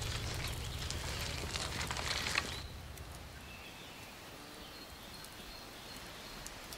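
Outdoor ambience: irregular crackling and rustling over a low hum, which cuts off suddenly about two and a half seconds in. A quieter background follows, with a few faint high chirps.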